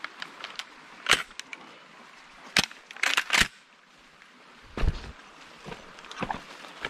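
Dry leaves and twigs crackling and snapping in forest undergrowth in a string of sharp cracks, with a quick cluster about three seconds in and a duller, deeper thump about five seconds in.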